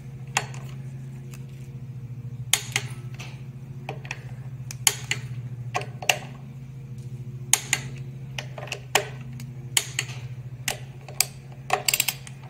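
Torque wrench and socket working the flywheel stretch bolts to 44 N·m: sharp metallic clicks about once a second, some in quick pairs and a cluster near the end, over a steady low hum.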